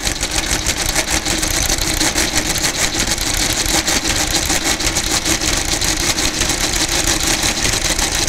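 Friden SRQ electromechanical square-root calculator running an automatic square-root calculation: its motor and stepping mechanism clatter in a dense, fast, even run of clicks without a pause.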